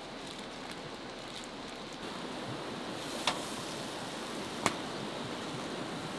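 Charcoal fire in a tabletop grill crackling: two sharp pops about a second and a half apart over a steady hiss.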